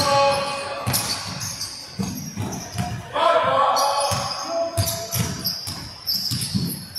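A basketball bouncing on a wooden gym court during play, with repeated knocks and short squeaks of sneakers on the floor.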